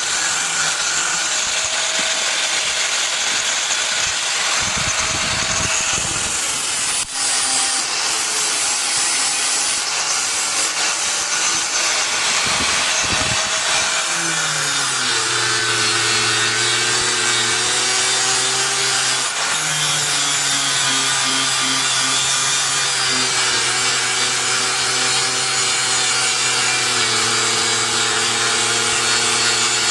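Power tool working steel: a continuous abrasive noise. About halfway through, its motor tone drops in pitch and then holds steady under load.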